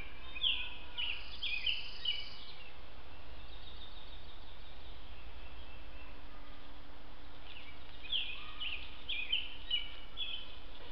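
A songbird singing two phrases, each a quick run of short, falling notes: one right at the start and another about eight seconds in. A steady hiss lies under them.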